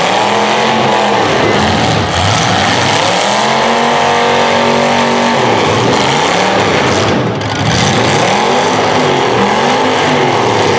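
Demolition derby cars' engines revving hard over and over, each rev rising in pitch, holding and falling away, with a long rev in the middle, over a constant loud wash of engine noise.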